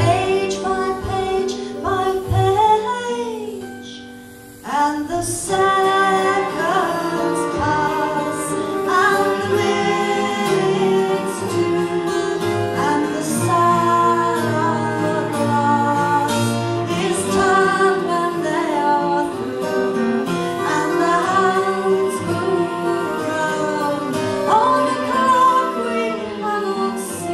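Folk song: a woman singing over guitar accompaniment. The music drops back briefly about four seconds in, then carries on.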